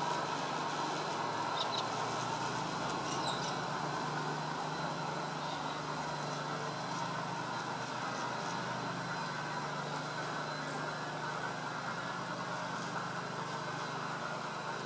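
Garden-scale model train running along the track, a steady rumble that fades slowly as it moves away.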